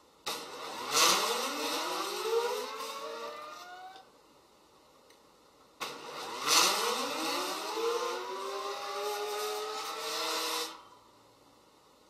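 Geared stepper motors of a four-wire cable-driven parallel robot winding its wires in and out, whining in two runs of a few seconds each. Each run starts suddenly, and its pitch rises as the motors speed up and then holds steady. The second run is longer and stops abruptly.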